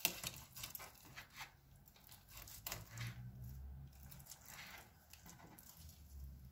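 Kitchen knife cutting open raw chicken drumsticks on a wooden cutting board: faint, scattered clicks and taps of the blade and handling of the meat.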